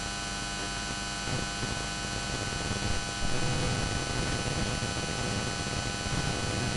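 Steady electrical hum and hiss with many fixed tones, the noise floor of the narration microphone's line picking up mains interference; it gets slightly louder about three seconds in.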